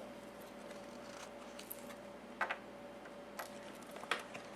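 Faint handling noise from the card game: a few short, quiet clicks and taps, the most noticeable a double tick about two and a half seconds in.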